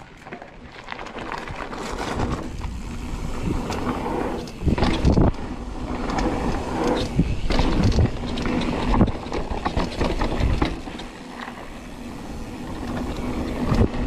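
Mountain bike riding fast down a rough, rocky dirt trail: tyres crunching over dirt and stones, and the bike rattling and clattering. It gives heavy knocks over bumps, the loudest about five seconds in and again around eight to ten seconds.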